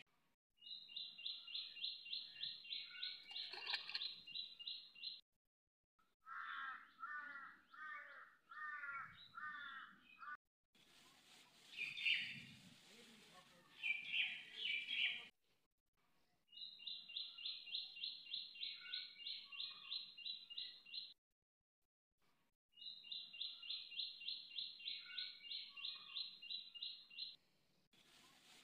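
Birdsong: rapid runs of high, evenly spaced chirps, about four a second, come in three bursts of four to five seconds that each stop abruptly. Between them are a series of slower, lower hooked calls, about one a second, and a few single calls.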